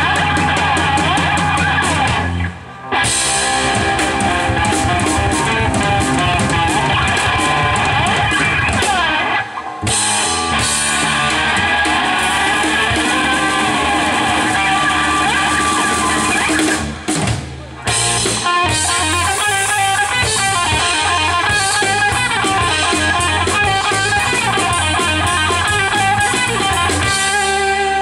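Live rock band playing: electric guitar, bass guitar and drum kit together, loud and dense. The band stops short for a moment about three seconds in, again near ten seconds, and twice around seventeen to eighteen seconds, coming straight back in each time.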